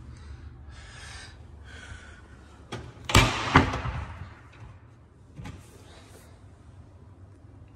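Built-in wall oven door swung shut: a loud clunk with a second knock just after it, and a few light clicks just before. A softer knock follows about two seconds later as a cupboard door is opened.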